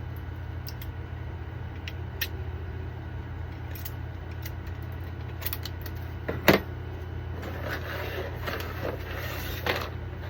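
3D-printed plastic figurine parts being handled and fitted together: scattered light clicks and taps, a sharper snap about six and a half seconds in, and a run of clicking and rustling near the end, over a steady low hum.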